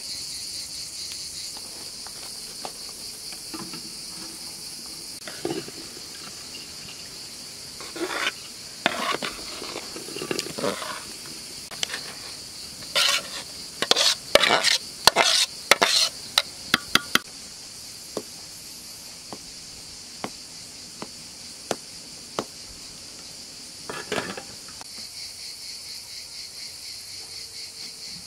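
Steady high chirring of crickets and other insects. From about 8 seconds in, a metal utensil clinks and scrapes in a cooking pot, with a quick run of sharp clinks around the middle and one more scrape near the end.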